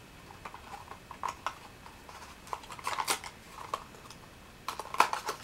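Small clicks, taps and rustles of hands handling a small cardboard skin-cream carton, with a cluster of sharper clicks about three seconds in and again near the end.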